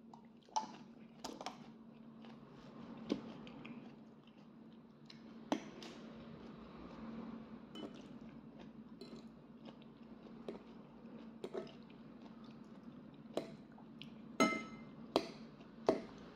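A metal fork clinks and scrapes against a white ceramic bowl, about ten sharp clinks spread out, with the loudest and most ringing ones near the end. Soft chewing runs between the clinks, over a steady low hum.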